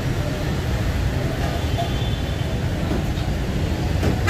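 Steady low rumble of busy street traffic.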